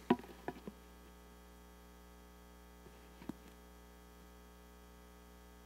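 Steady electrical mains hum from the sound system, with a sharp click just after the start, two lighter clicks within the first second and another faint knock about three seconds in.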